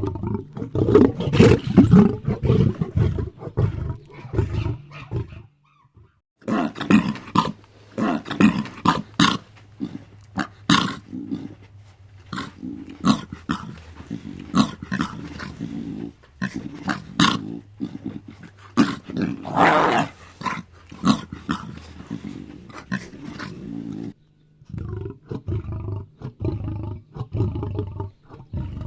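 Lion roaring and grunting in many short repeated bursts, in three separate stretches broken by sudden brief silences about five seconds and about 24 seconds in.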